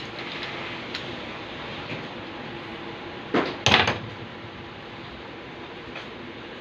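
Two loud, short clatters or knocks in quick succession about three and a half seconds in, over a steady background hiss with a few light clicks.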